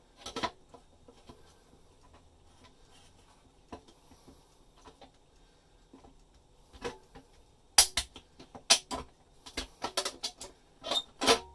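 A hand tool cutting the metal ceiling backing through a downlight hole, reached in by hand. A few faint scrapes are followed, in the second half, by a run of sharp metallic clicks and snaps.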